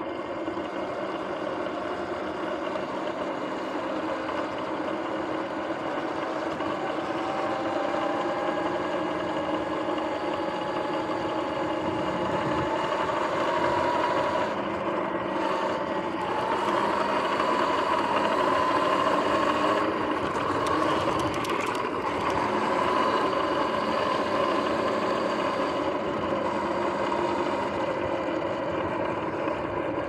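Sur-Ron electric dirt bike riding along: the electric motor and chain drive whine over tyre and wind noise, the whine climbing slowly in pitch through the middle as the bike speeds up. The front hub and jackshaft bearings are going bad, which the owner hears as grinding and clicking.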